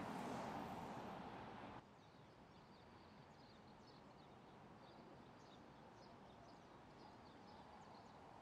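Electric Mercedes-Benz EQS 450+ sedan passing close, a soft rush of tyre noise without engine sound, cut off abruptly a little under two seconds in. After that, faint bird chirps over quiet street ambience.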